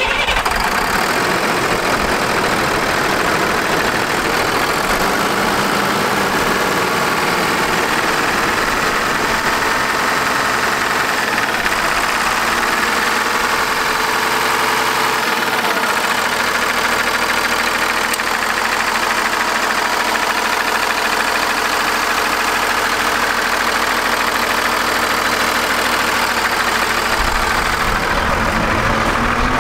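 A Cummins ISC inline-six turbo-diesel idling steadily, heard up close in the open engine bay.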